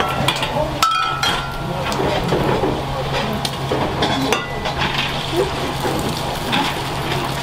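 Restaurant kitchen at work: metal pans and utensils clink several times, one with a brief ringing tone about a second in, over a steady low hum and background voices.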